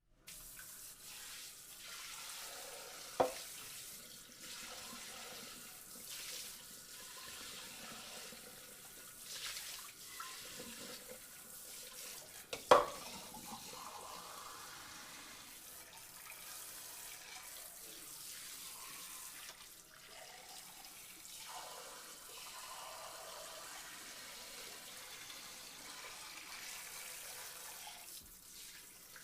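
Water running from a tap into a sink, a steady uneven splashing hiss, with two sharp knocks, about three seconds in and again louder about thirteen seconds in.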